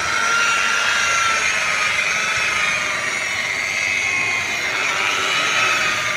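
Electric rotary car polisher running with a steady high whine while its buffing pad works the paint, the pitch sagging and recovering slightly as the pad is pressed on.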